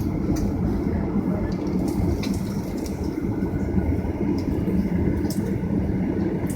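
Cabin noise inside a Boeing 737-900ER: the steady low rumble of its CFM56-7 turbofan jet engines and airframe, with a few faint ticks.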